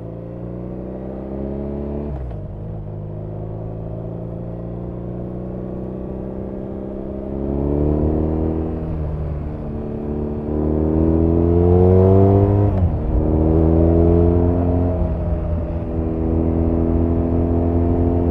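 BMW R nineT's 1170 cc boxer twin accelerating through the gears. The revs climb and drop back at upshifts about two, nine and thirteen seconds in, then hold fairly steady. It gets louder in the second half.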